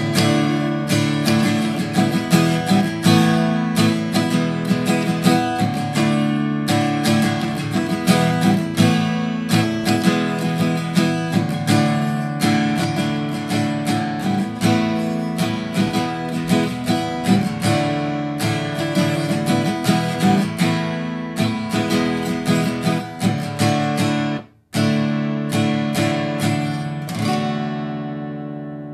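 Steel-string acoustic guitar strummed in chords, closing out a song with no singing. The strumming cuts off sharply for an instant about 24 seconds in, starts again with a few strums, and the last chord rings out and fades.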